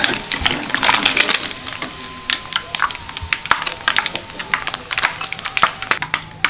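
Fresh wet anchovies frying in hot cooking oil: irregular crackling and popping over a hiss, busiest in the first second or so.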